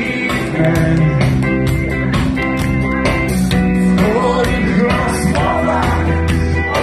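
A live band playing a song with a steady drum beat and a male lead vocal, heard from within the audience.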